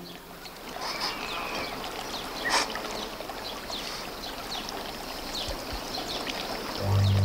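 Steady outdoor nature ambience: an even rushing noise with faint, short high chirps scattered through it. A low held musical note comes in near the end.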